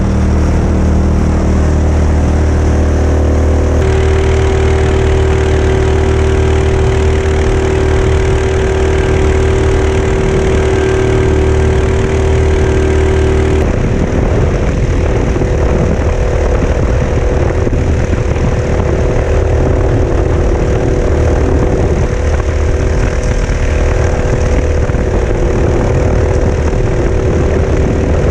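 Mokai motorized kayak's engine running steadily at speed through a prototype ES-kape 2.0 muffler. The tone shifts about four seconds in, and about halfway through the sound turns rougher and noisier.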